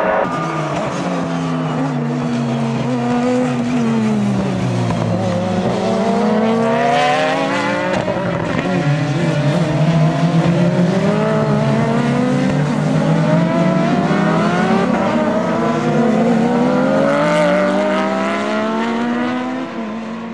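Racing car engine at high revs on a circuit. The note falls for the first few seconds as the car slows, then climbs in steps through a series of upshifts as it accelerates, and does so twice.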